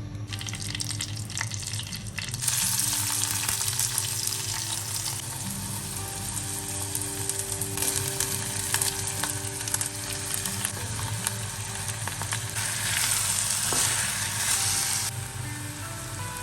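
Food sizzling in hot oil in a pan, stirred now and then. The sizzle gets louder about two and a half seconds in and eases off near the end.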